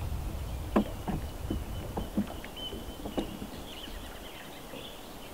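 Water slapping and knocking lightly against the hull of a wooden boat: a handful of short knocks in the first three seconds over a low rumble that dies away.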